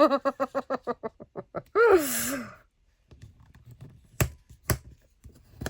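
A woman's short laugh followed by a breathy sigh, then two sharp taps about half a second apart.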